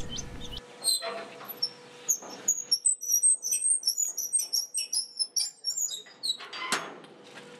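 Small birds chirping and twittering in quick, high calls, with a louder metallic clack near the end as a rusty sliding barrel bolt on a steel door is worked.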